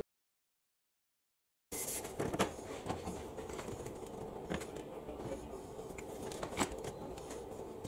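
Complete silence for under two seconds, then scattered light clicks and clinks as the steel sprockets, chain and nuts of a welded table top are handled on a metal workbench, over a faint steady hum.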